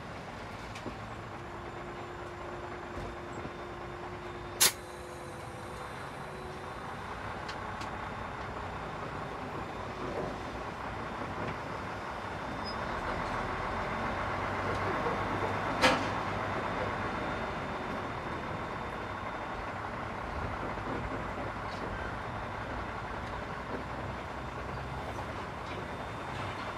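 Container truck's diesel engine running at low speed, heard from inside the cab: a steady drone that swells a little midway. Two sharp knocks stand out, about five seconds in and again around sixteen seconds.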